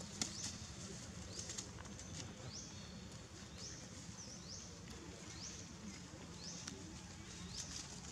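Quiet outdoor ambience with a bird repeating short, high chirps about once a second, and a few faint clicks.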